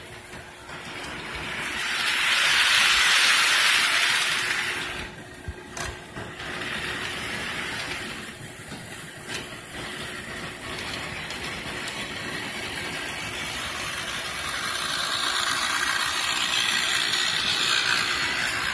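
Model trains rolling on sectional track: a steady hissing rumble of wheels and motors that swells loud twice as trains pass close, with a faint steady hum underneath and a couple of sharp clicks.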